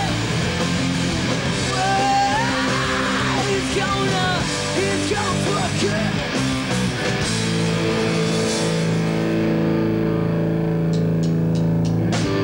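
Punk rock band playing live: female lead vocals over distorted electric guitars, bass and drums. From about seven seconds in the singing stops and the band holds sustained guitar chords, with a few sharp ticks near the end.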